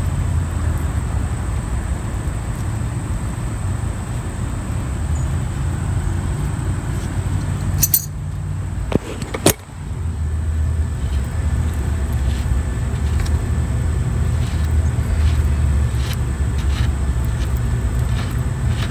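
A steady low rumble, with faint metallic clicks as the spindle nut on a drum-brake front hub is turned off by hand. A few sharp knocks come around the middle.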